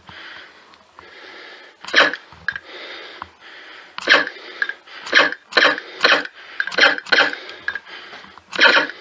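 Airsoft gun firing single shots: about eight short, sharp pops at irregular intervals, mostly in the second half, with fainter clicks between them.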